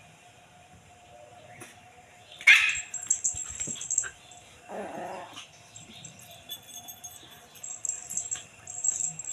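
Small puppy barking and yapping in play, in several short bursts, the loudest about two and a half seconds in.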